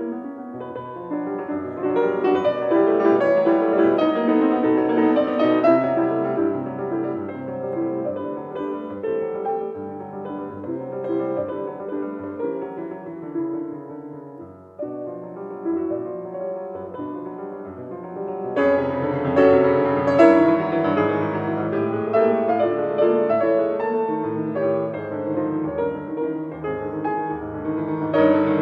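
Background piano music. It breaks off briefly about fifteen seconds in, then grows fuller and louder a few seconds later.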